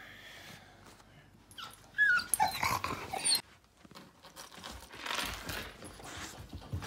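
Black Labrador whining in high, wavering whimpers for about a second and a half, starting about two seconds in.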